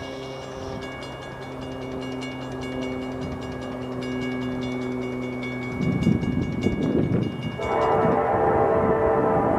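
A CSX freight locomotive's air horn sounding from an approaching train, a held chord that grows much louder about eight seconds in, over a grade-crossing warning bell ringing steadily.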